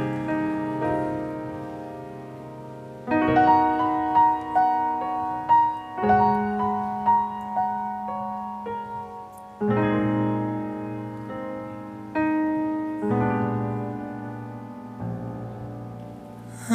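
Grand piano playing a slow solo introduction: sustained chords struck one after another, each left to ring and fade before the next.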